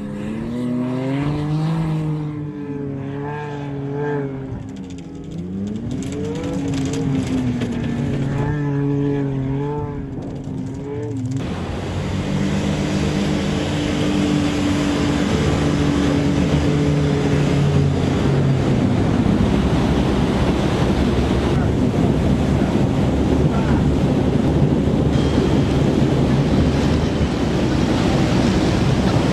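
An engine revving, its pitch rising and falling for about ten seconds, then running steadily under a rushing noise that builds and stays loud, as of a vehicle under way at speed.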